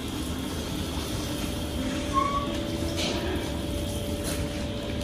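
Steady mechanical hum and rumble of kitchen machinery, with a brief higher tone about two seconds in and a sharp click about three seconds in.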